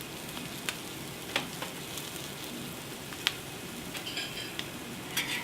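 Egg noodles frying in a hot wok, a steady sizzle, with a few sharp clicks about a second in and again near the middle.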